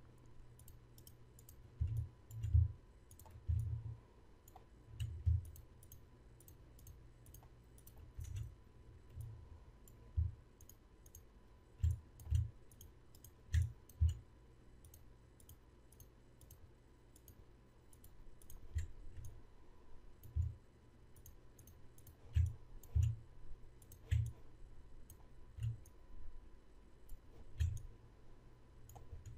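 Computer mouse clicking at irregular intervals, with dull low thumps between and under the clicks.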